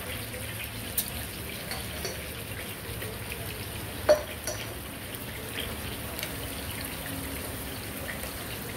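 Hot oil sizzling steadily as rohu fish steaks shallow-fry beside fenugreek seeds just dropped into oil in a kadai, with scattered small crackles. A sharp clink about four seconds in.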